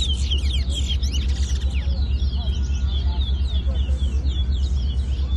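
Towa-towa (chestnut-bellied seed finch) singing rapid, overlapping whistled chirps and slurred notes without pause, the song phrases that are being counted in a bird song race. A steady low rumble runs underneath.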